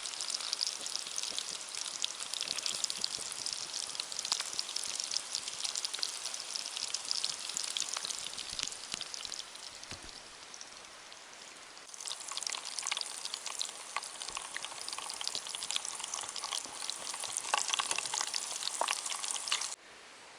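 Food frying in oil in a pan on a camp stove, a steady crackling sizzle with many small pops, easing off for a few seconds midway and then stronger again before it cuts off suddenly near the end.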